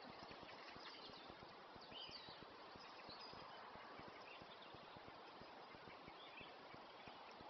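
Faint dawn chorus: scattered short, high notes from distant songbirds over a steady background hiss.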